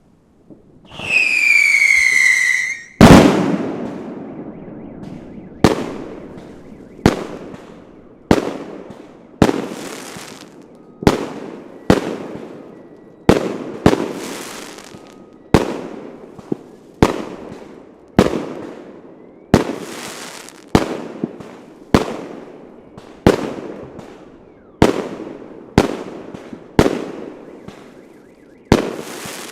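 Fireworks: a whistling shot with a falling whistle lasting about two seconds, then a loud bang. A steady string of some twenty bangs follows, roughly one every second and a bit, each trailing off in echo.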